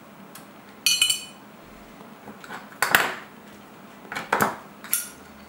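Sharp metallic clicks and clinks from a lighter and pipe being handled while a corn cob pipe is relit. There are about five clicks spread out, the first with a brief high ring.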